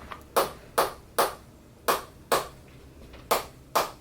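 Chiropractic adjusting taps on a patient's back: sharp, evenly spaced clicks, each with a short ringing tail, about two a second, seven in all with a brief pause in the middle.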